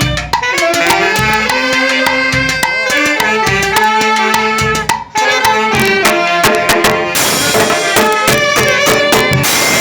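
A banda orquesta playing: melody instruments over drums and percussion with a steady beat, and a brief break about five seconds in.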